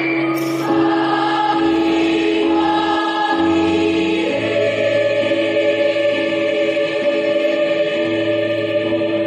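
A mixed school choir singing held chords in several parts, the harmony shifting a few times.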